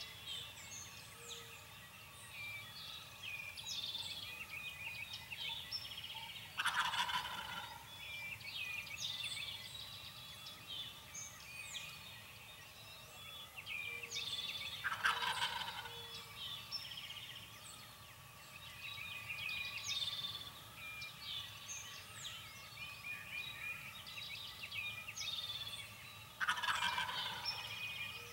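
Wild turkey gobbling three times, each a rattling gobble of about a second, spaced roughly 8 and 11 seconds apart. Songbirds chirp throughout.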